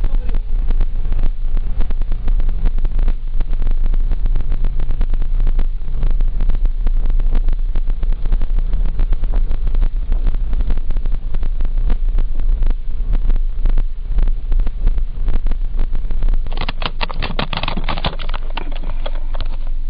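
Interior noise of a Mazda 2 1.3 on the move: a steady low engine hum under tyre and road rumble, with frequent small knocks and buffeting. About three-quarters of the way through, a louder rustling and scraping of the camera being handled.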